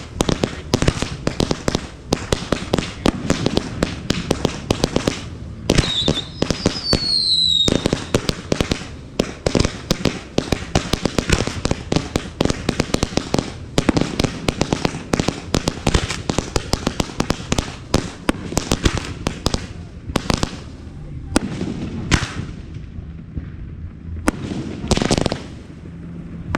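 Aerial fireworks display going off in rapid succession: dense strings of bangs and crackling reports, many per second, with a couple of falling whistles about six to eight seconds in. The barrage thins briefly near the end, then picks up again.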